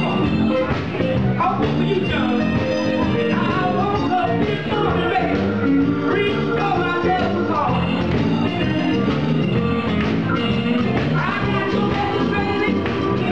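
Live band playing: a woman singing into a microphone over electric guitar, drums and keyboard.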